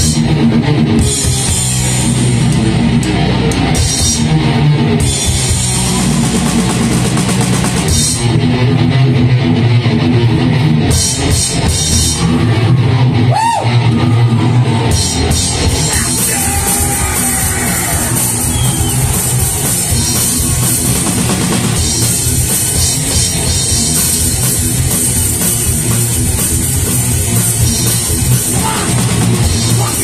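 Live heavy metal band playing loud: a rock drum kit with driving kick, snare and cymbals, and electric guitar. The cymbal wash grows denser about halfway through.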